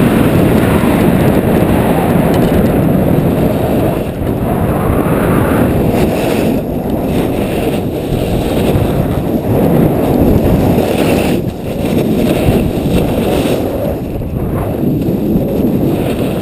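Wind buffeting the camera microphone during a fast run down a snow slope, a loud, wavering rush with the scrape of snow beneath the rider mixed in.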